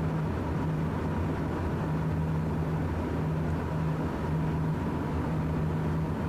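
Cessna Citation M2 cockpit noise in flight: the steady hum of its twin turbofan engines and the airflow. A low hum in it cuts out briefly about once a second.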